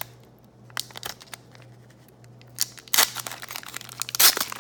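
Wrapper of a 2017 Donruss Optic trading card pack being torn open and crinkled: a few faint clicks, then loud crinkling and tearing from about three seconds in.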